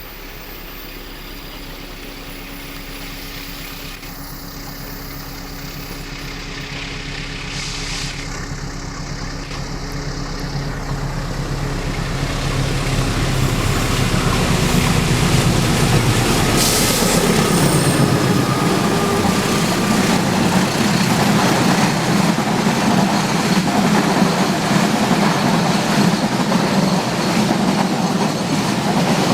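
An empty freight train behind a diesel locomotive approaches, its engine growing steadily louder. The locomotive passes about halfway through with its engine note dropping in pitch, then the wagons roll by with wheels clattering on the rails.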